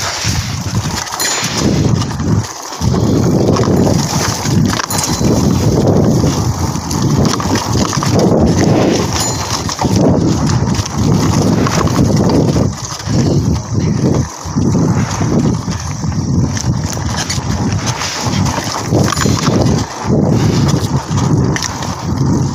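Mountain bike rattling and jolting over a rough dirt trail: a loud, uneven rumble with clattering knocks and a few brief dips.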